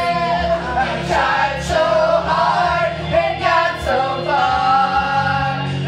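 Karaoke: several amateur voices, men and women, singing together into microphones over a backing track, loud and unbroken.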